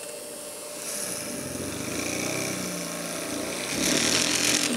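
Mini drill press's small DC motor running off a bench power supply at about 9 volts, its pitch wavering as it bogs down under load while the bit is fed into a metal bar. About four seconds in, a louder, harsher scraping rises as the bit grinds against the metal.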